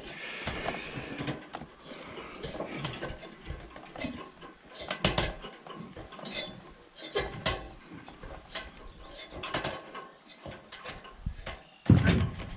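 Aluminium extension ladder being climbed down: irregular metallic knocks and clanks of hands and shoes on the rungs, with a louder thump near the end as the ground is reached.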